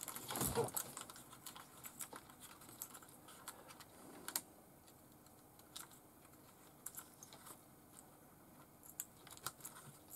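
Faint, scattered clicks and ticks of fingers handling wires and pushing small metal connectors onto a mechanical speed controller's terminals, with a louder handling bump about half a second in.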